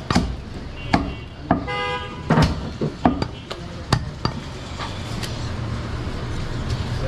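A heavy butcher's knife chopping goat meat on a wooden chopping block: a series of irregular sharp knocks. A vehicle horn toots briefly about two seconds in over a low background hum of traffic.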